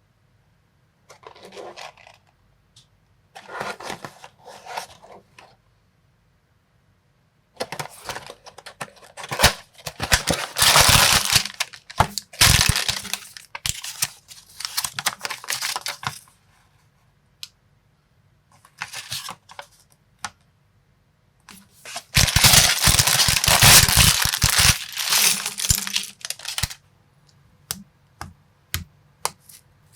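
Small plastic building-block pieces and their packaging being handled, in bursts of clicking, rattling and crinkling. The longest and loudest bursts come about a third of the way in and again at about three-quarters.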